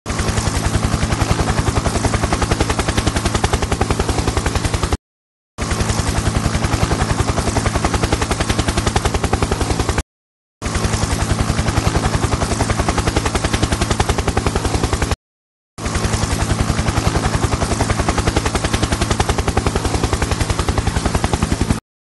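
Helicopter rotor chop with a fast, even beat of pulses over a steady engine drone. It plays in four stretches of about five seconds each, broken by brief silences.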